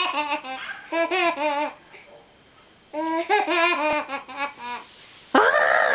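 A toddler laughing in two runs of quick giggling bursts. About five seconds in comes a long, silly vocal noise that swoops up and then slowly falls.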